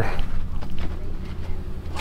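Winch running steadily as it pulls a side-by-side up onto a trailer, over a low engine hum.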